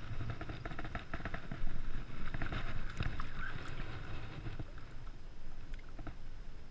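Lake water splashing and lapping among shoreline rocks as a hand lowers a smallmouth bass into the water to release it. There are scattered small knocks and a low steady rumble of wind on the microphone, and the loudest splash comes a little under two seconds in.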